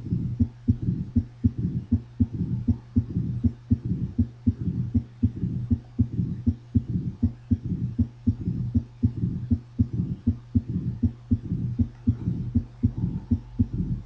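Recorded heart sounds of mitral valve stenosis: a regular run of low-pitched heartbeats with sound filling the gaps between them. The stiffened mitral valve gives the extra opening snap after the second sound. A steady low hum runs beneath.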